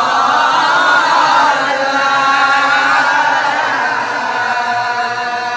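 A group of voices chanting together in a devotional chant, the pitch rising and falling in unison, settling onto a long held note near the end.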